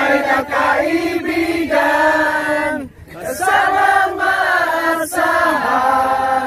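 Singing voices carrying a melody in long held notes, with a short pause between phrases about three seconds in.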